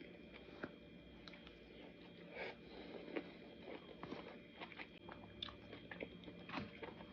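A person chewing a mouthful of Chinese takeout: faint, irregular mouth clicks and small wet smacks.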